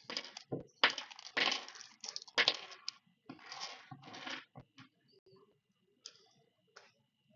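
Workbench handling noises: a run of rustling and scraping with a few sharp clicks and clatters, loudest in the first half, then only a few faint ticks, as small parts and tools are handled during a drone motor installation.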